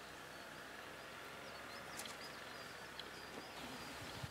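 Faint outdoor ambience with small birds chirping now and then, and a few soft clicks about two and three seconds in.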